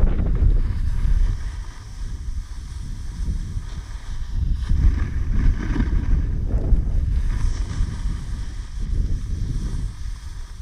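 Wind buffeting the microphone of an action camera on a pole while snowboarding downhill: a low, gusty rumble that swells and eases, with the fainter hiss of the snowboard sliding over snow.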